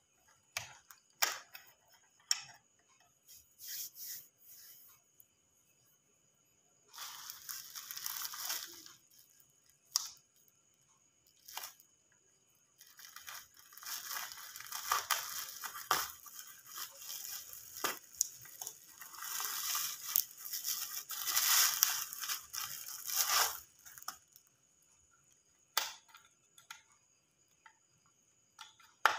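Plastic packaging wrap crinkling and tearing as wrapped parts are unpacked, in two long rustling stretches, with scattered clicks and knocks of parts being handled.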